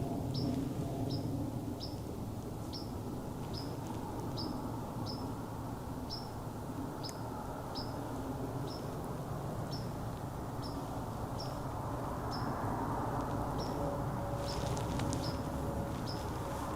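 Short high-pitched chirps repeating about twice a second over a low, steady rumbling background, with a few sharp clicks near the end.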